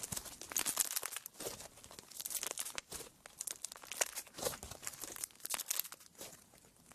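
Slime being squeezed and pressed by hand, crackling and crinkling in quick, dense clicks that thin out near the end.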